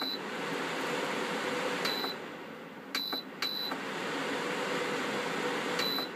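Evaporative air cooler's fan running with a steady rush of air and a faint hum, while its digital control panel gives about four short high beeps, two of them close together around the middle. The airflow drops after the first beep and picks up again after the third. The unit is running normally on mains power after its shorted oscillator motor and failed triac were removed.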